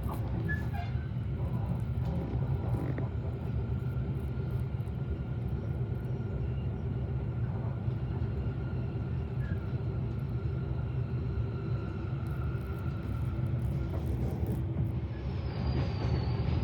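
Diesel passenger train's steady low rumble, with faint steady humming tones over it and a faint high whine coming in near the end.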